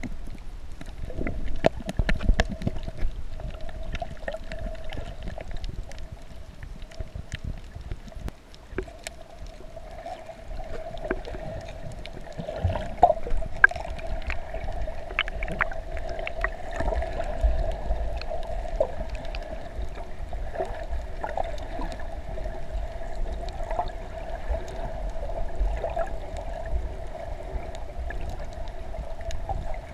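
Underwater sound: water bubbling and gurgling with scattered sharp clicks and crackles over a steady hum.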